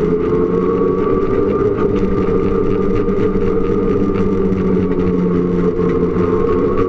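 Snowmobile running at a steady speed, its engine drone holding even with a thin high whine that drifts slightly up and down in pitch.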